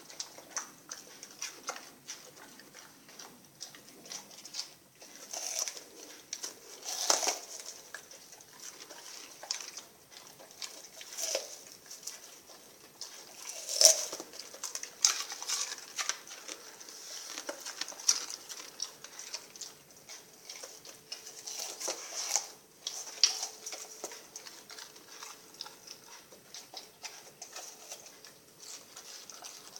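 Rottweiler eating sardines: irregular wet smacking, licking and chewing clicks, with a few louder smacks scattered through.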